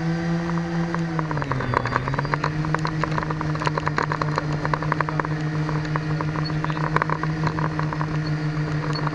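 Motor of a radio-controlled model running at a steady pitch as it rolls along, dipping briefly about two seconds in and then coming back up, with a scatter of small clicks through the middle.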